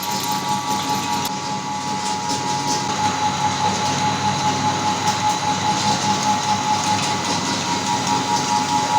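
Meat grinder running and grinding Oreo cookies: a steady whine over a grinding noise. From about three seconds in it takes on a regular pulsing, a few times a second.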